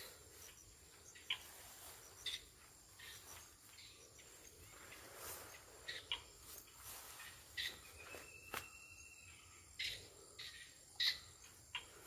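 Faint, steady high chirring of insects, broken by scattered short rustles and clicks from someone moving and handling things in the grass at the water's edge.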